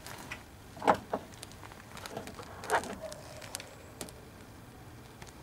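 Hands handling the wiring harness and a hose around a newly fitted alternator in an engine bay: scattered light clicks and rustles, with two louder knocks about a second in and again near the middle.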